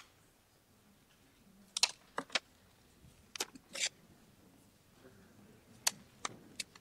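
Scattered sharp clicks and brief rustles in small clusters, about 2, 4 and 6 seconds in: ballot papers and pens being handled at the tables of a large meeting hall.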